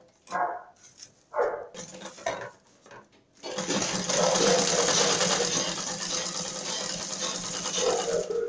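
Green domestic sewing machine running steadily for about five seconds as it stitches a seam in stiff net fabric, starting about three and a half seconds in after a few brief handling sounds.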